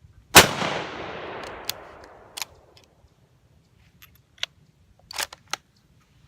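A single rifle shot from a full-length Swedish Mauser in 6.5x55, loud and sudden with a long echoing decay over about two seconds. Several short, sharp clicks follow over the next few seconds.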